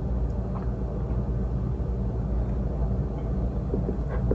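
Steady low hum in the room, with a few faint soft taps and scrapes from a silicone spatula spreading a creamy topping and dipping back into the bowl, the clearest near the end.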